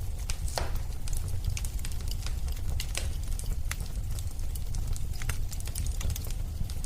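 Fireplace wood fire burning: a steady low rumble of flames with irregular sharp crackles and pops from the burning logs.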